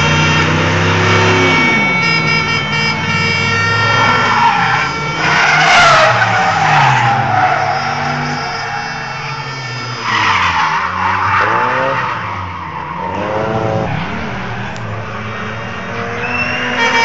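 Drift cars sliding through a corner, their engines revving up and down. Loud tyre screech swells about five seconds in and again around ten seconds.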